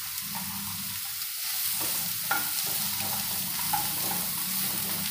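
Soya chunks sizzling as they fry in ghee on medium heat, stirred with a wooden spatula that scrapes and knocks against the pan a few times.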